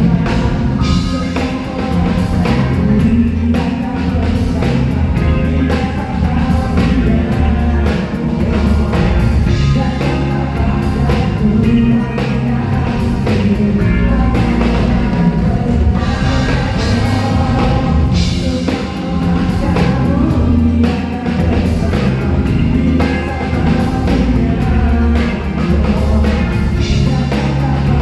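A live rock band playing through a concert sound system, with drum kit and bass and a singing voice over them.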